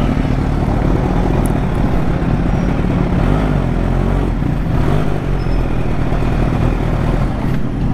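Kawasaki Ninja H2's supercharged inline-four running steadily at low revs while the bike rolls slowly.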